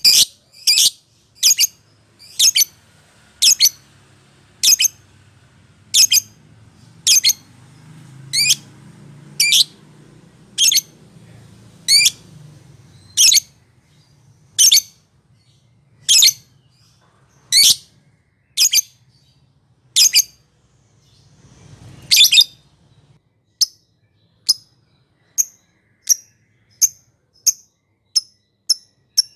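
Lovebird calling in a series of short, shrill chirps, about one a second, quickening to about two a second near the end. It is a bait call used to set other lovebirds singing.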